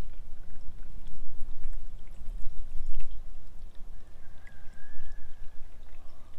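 Diesel fuel pouring and trickling out of a Mercedes W123's released fuel filter, over a steady low rumble.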